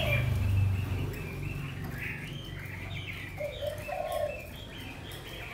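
Caged hwamei (Chinese melodious laughingthrush) singing short phrases of clear whistled notes, broken by a pause about a second in before the song picks up again.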